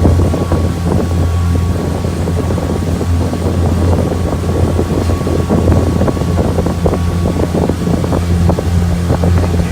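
Pontoon boat's outboard motor running steadily with a low, even hum, while wind buffets the microphone.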